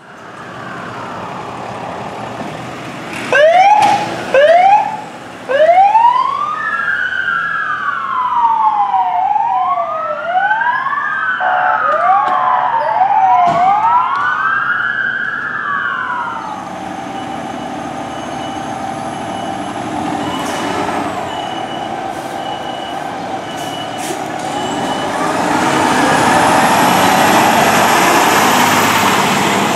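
Fire apparatus sirens responding. A few very loud short whoops come about three to five seconds in, then an electronic wail rises and falls about every two and a half seconds. From about sixteen seconds a steadier siren tone with vehicle noise takes over and swells loudest near the end.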